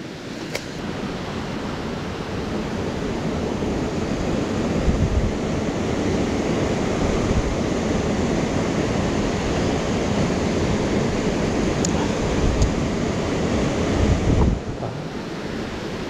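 Water of a small mountain stream rushing steadily, a little louder after the first second and easing off near the end.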